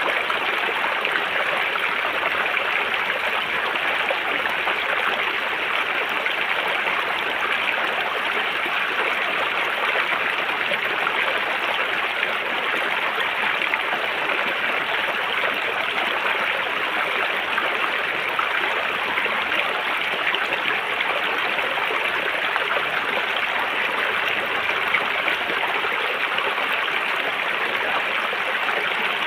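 River water flowing over rocks, a steady, even rushing and babbling.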